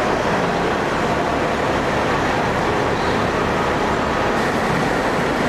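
Diesel engines of heavy military trucks running steadily.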